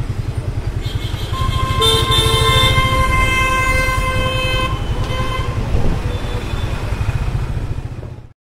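Street traffic: a vehicle horn blares for about three seconds starting a second and a half in, followed by a short second honk, over steady low engine and road rumble. The sound fades out near the end.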